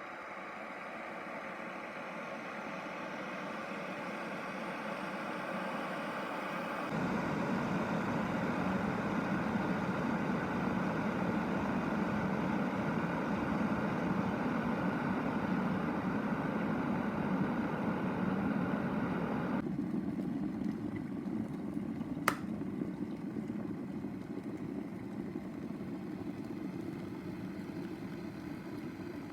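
Lilpartner 1.7 L glass electric kettle heating water: a steady rushing noise that grows louder as the water nears the boil. About three quarters of the way through there is a single sharp click, typical of the kettle switching itself off, and the noise then slowly dies away.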